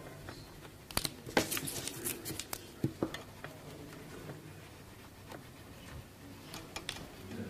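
Pen scratching and tapping on paper during sketching, with a cluster of light clicks and knocks in the first few seconds, then fainter scratching.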